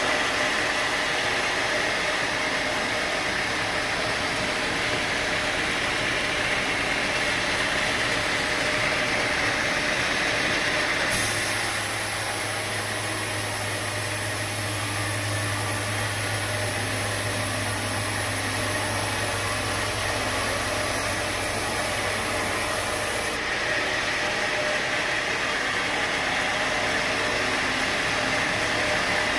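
Sawmill machinery running steadily. From about 11 s in to about 23 s in, a low hum and a high hiss join the noise, then drop away.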